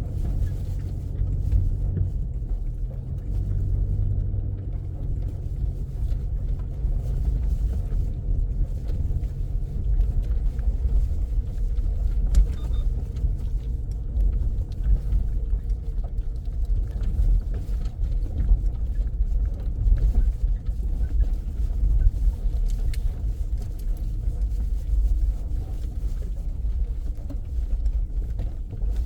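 Low, steady rumble of a car driving, with the level wavering throughout.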